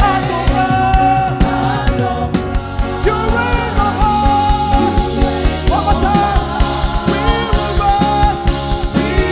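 Live gospel worship music: singing over a full band with drums keeping a steady beat.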